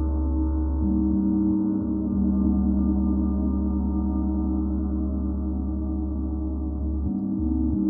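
32-inch Mercury planetary gong ringing in a sustained wash of many overlapping tones. Its lowest tones shift about a second in and again near the end while the overall sound stays steady.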